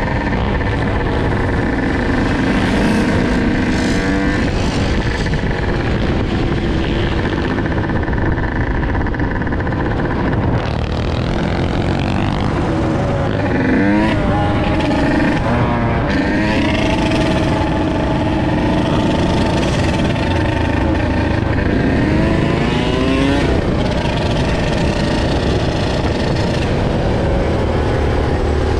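Dirt bike engine running as it is ridden, its pitch rising and falling repeatedly as the rider revs and eases off, with other bikes and ATVs nearby.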